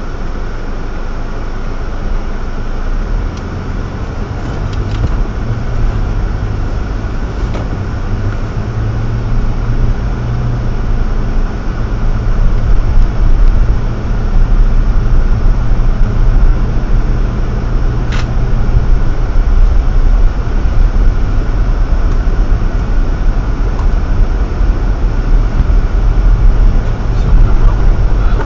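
Car cabin driving noise picked up by a dash camera's built-in microphone: steady engine and tyre rumble on a packed-snow road, growing louder as the car picks up speed.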